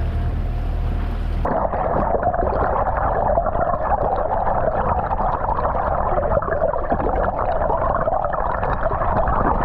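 Wind buffeting the microphone just above the sea surface. About a second and a half in, the sound cuts abruptly to muffled underwater sound as the camera goes under: a dense crackling hiss of moving water.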